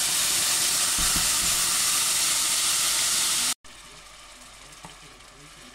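Blended tomato and chile salsa sizzling loudly in hot oil in a cooking pot, the first frying that seasons the sauce, with a steady hiss of steam. The loud sizzle cuts off abruptly about three and a half seconds in, and a much quieter sizzle follows.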